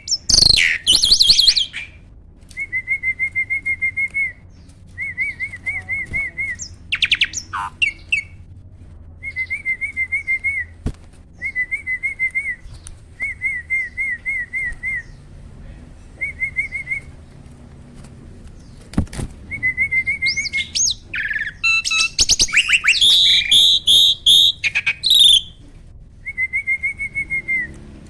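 Jalak starling singing: a string of short warbling phrases, each a second or two long, repeated with brief pauses, broken by louder, busier chattering outbursts near the start, about seven seconds in, and for several seconds in the back half.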